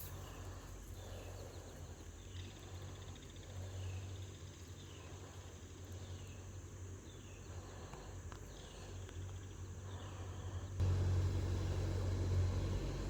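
A bird repeating a short, falling chirp about once a second, over a steady low rumble that turns suddenly louder near the end.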